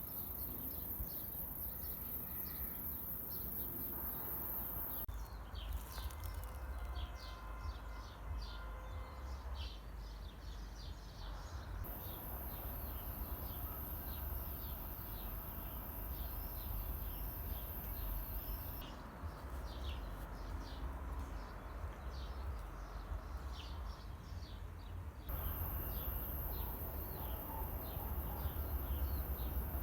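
Outdoor ambience: birds chirping over and over, short irregular calls, above a steady low rumble.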